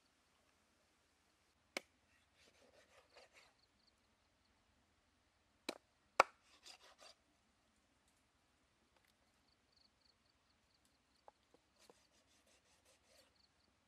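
A large knife cutting stingray on a wooden chopping board: a few sharp knocks of the blade on the board, the loudest about six seconds in, and short runs of quick scraping as it slices through the flesh.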